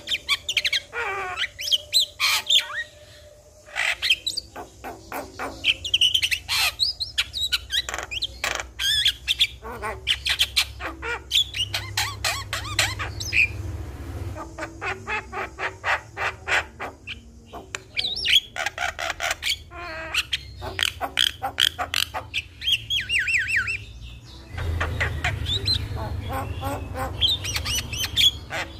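Javan mynas calling continuously: rapid clicking runs, whistled notes and harsh squawks, with a short pause about three seconds in.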